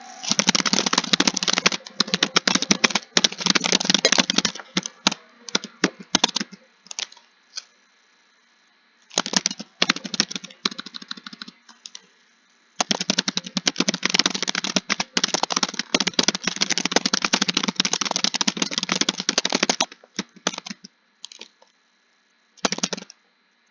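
Computer keyboard typing in fast, continuous runs of key clicks, broken by short pauses and a few scattered keystrokes.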